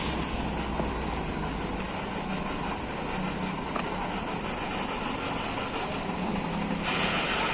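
Heavy truck engine running low and steady, with a short air-brake hiss near the end.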